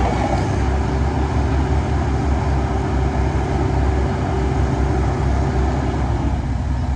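Heavy diesel engine of construction machinery running steadily with a deep drone. A thin steady whine above it stops about six seconds in.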